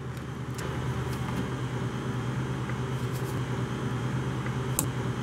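Steady low machine hum, with a few light clicks of wire cutters snipping plastic zip ties; the sharpest snip comes near the end.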